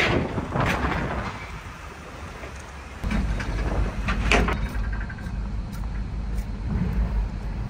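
Low, steady rumble inside a car's cabin as it rolls slowly in a line of cars toward a ferry's car deck, starting suddenly about three seconds in. Before it there is lighter outdoor noise with a few short, sharp sounds, and another sharp sound comes a little after the rumble starts.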